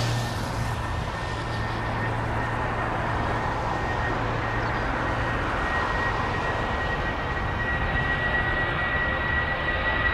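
Jet engines of an Airbus A319 taxiing, a steady rushing sound with a high whine that grows louder near the end as the aircraft comes closer.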